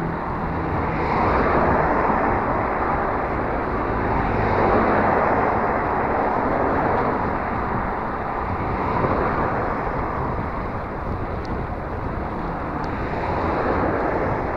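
Wind rushing over the microphone and road noise of a bicycle on the move, swelling and easing every few seconds.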